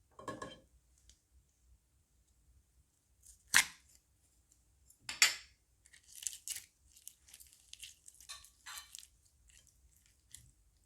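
Crunchy slime being squished and mixed by hand, giving sharp crackles and pops: two loud ones near the middle, then a run of smaller crunchy crackles.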